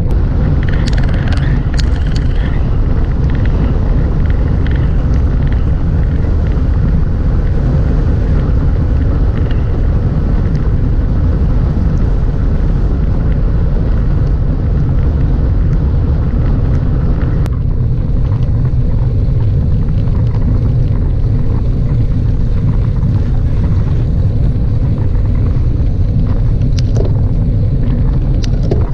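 Wind buffeting the microphone of a camera on a moving road bike, a loud steady low rumble mixed with tyre noise on asphalt. The sound shifts suddenly about seventeen seconds in.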